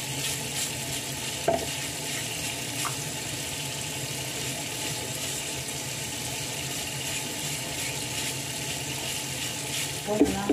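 Tap water running into a sink while a brush scrubs the hard shells of live crabs, a steady wet hiss of water and bristles. A brief sharp clack about a second and a half in, and a couple more near the end, as shells or the brush knock together.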